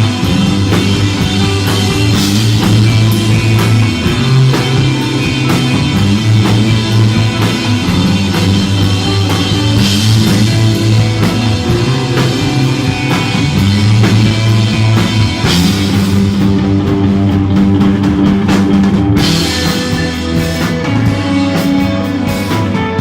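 Instrumental desert rock played live: electric guitar over a bass line that shifts note about every two seconds, with a drum kit keeping time. Cymbal crashes come about 2, 10, 15 and 19 seconds in, and the cymbals drop out briefly just before the last one.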